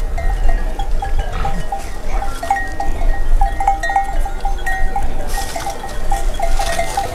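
A mixed herd of goats and sheep milling close by: a steady stream of many short, overlapping sounds from the animals over a low rumble.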